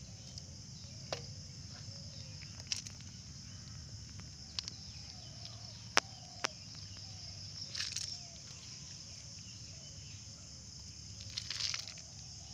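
Steady high chirring of insects, with a few sharp clicks and two short rustles as small snail shells are picked through by hand on dry ground.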